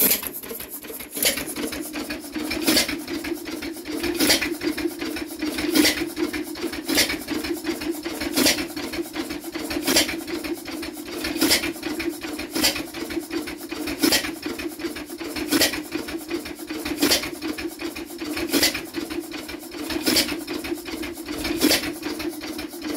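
1 hp IHC Tom Thumb air-cooled hit-and-miss engine running: a sharp firing bang about every one and a half seconds, with steady mechanical clatter and hum in between as it coasts on its flywheels.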